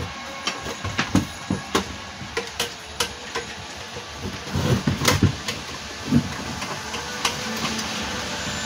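Scattered clicks and knocks from a solar charge controller's case being picked up, turned over and set down on a wooden workbench, with a cluster of knocks about halfway through.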